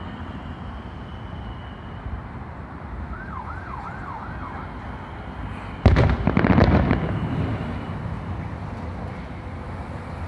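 Steady city traffic noise, with a faint siren wavering a few seconds in. About six seconds in, an aerial firework shell bursts with a loud bang, followed by about a second of crackling pops.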